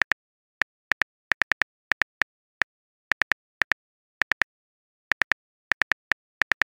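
Phone keyboard typing sound effect: short, sharp clicks in uneven clusters of two to four, with brief silences between, standing for a message being typed.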